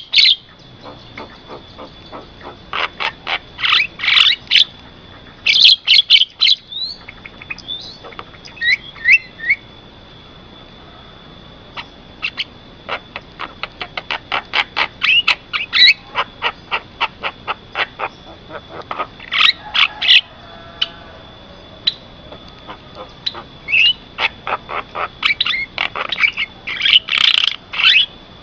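Javan myna calling: bursts of rapid, harsh, repeated notes broken by short pauses, over a faint steady high tone.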